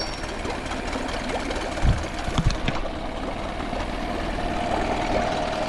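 Small four-stroke outboard motor idling steadily just after a pull start, with a few sharp knocks about two seconds in. It sounds quiet and healthy.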